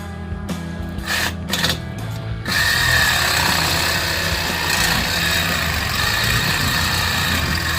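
A power tool motor starts with a few short bursts, then runs steadily for several seconds with a constant high whine. Background music plays underneath.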